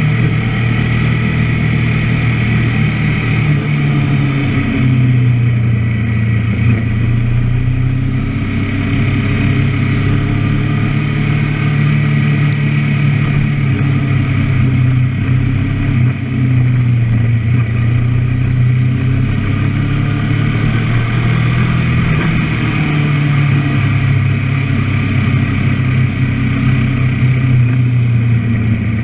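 Kawasaki Ninja 650R's parallel-twin engine running at low, fairly steady revs as the bike cruises slowly, its note rising and falling slightly with the throttle.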